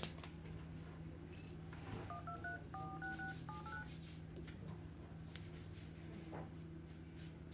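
A phone's keypad dialing tones: a quick run of about eight short two-note beeps over about two seconds, stepping through the keys row by row, starting about two seconds in. A faint steady hum lies underneath.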